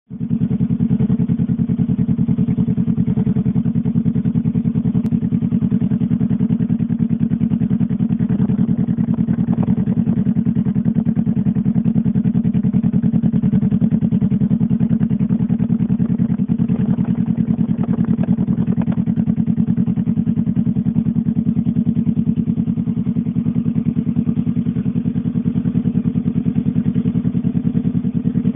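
Honda CBR motorcycle engine idling steadily through an aftermarket slip-on exhaust, a fast, even pulsing from the tailpipe with no revving.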